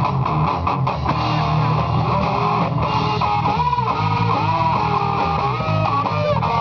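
Small rock band playing live on electric guitars, bass guitar and drums. A lead guitar line with bent notes comes in about three and a half seconds in.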